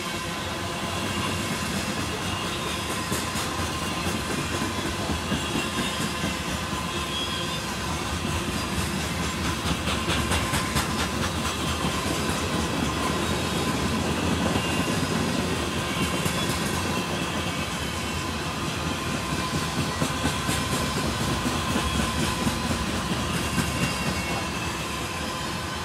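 Freight train of covered hopper cars rolling past, a steady rumble of steel wheels on rail broken by clusters of clicks as the wheel sets pass over rail joints, recurring every few seconds.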